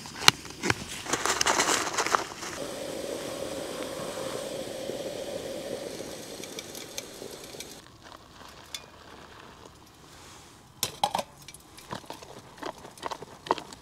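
Clicks and rustles of handling, then a camping gas stove burner hissing steadily for about five seconds before it cuts off suddenly. After that, a long spoon clinks and scrapes inside a crinkly foil food pouch as the freeze-dried meal is stirred.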